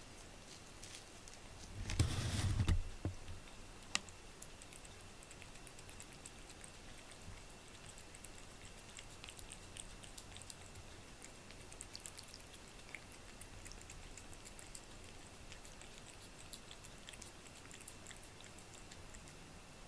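A cat licking a creamy treat off a plate: faint, quick wet clicks of the tongue, scattered irregularly. About two seconds in there is a brief, louder bump and rustle.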